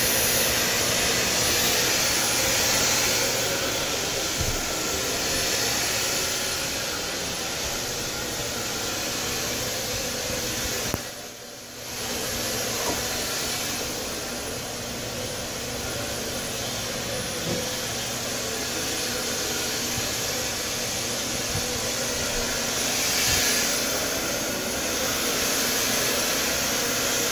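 Upright vacuum cleaner running steadily over carpet, its motor and suction making a constant whooshing hum that dips briefly about halfway through.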